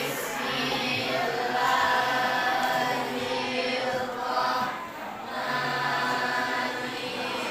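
A classroom of students chanting together in unison, with a short break about five seconds in.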